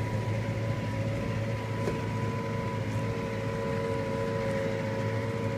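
Claas Arion 440 tractor's diesel engine running steadily under load while ploughing, heard from inside the cab: an even low drone with a constant whine over it.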